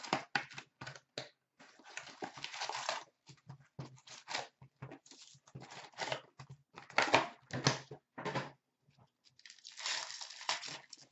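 Hands opening a hockey card box and its card packs: wrapper crinkling and packaging tearing in irregular bursts of crackle and rustle, with a longer stretch of tearing and rustling near the end as a pack is torn open.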